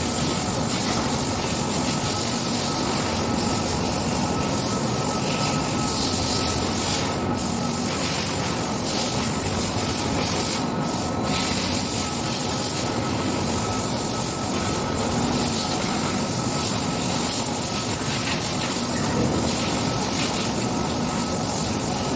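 Steady hissing, rushing machine noise from work on a large milling machine, with a faint steady hum underneath.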